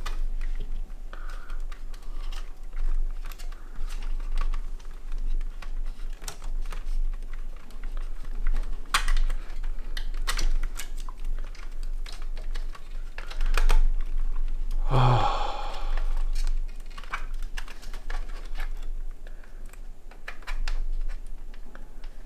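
Irregular small clicks and knocks of hands fitting computer parts into a small-form-factor PC case, over a steady low hum. About fifteen seconds in comes a brief, louder pitched sound.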